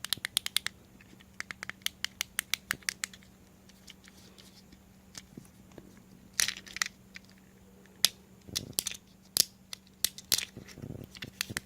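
Fidget cube being unboxed: crinkling, crackling packaging and sharp clicks, in quick runs over the first three seconds, then in scattered bursts from about six seconds on.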